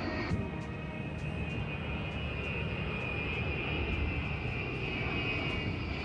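Y-20 four-engine jet transport's turbofans running during a flying display: a steady rumble with a high whine over it.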